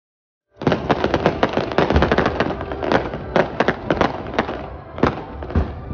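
Fireworks display going off: a dense run of rapid crackling pops with several louder bangs, starting about half a second in.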